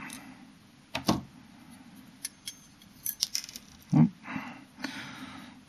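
Light metallic clicks and clinks: steel long-nose pliers set down on a tabletop and a small metal gyroscope frame handled, with a cluster of quick taps a little after three seconds and a fuller knock about four seconds in.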